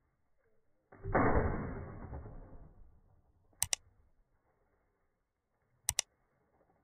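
A shotgun shot about a second in, its report dying away over roughly two seconds. Later come two quick double mouse-clicks, one near the middle and one near the end.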